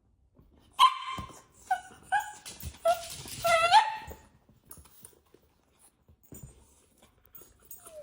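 A dog barking in a quick series of about five short, high-pitched yips, some rising at the end.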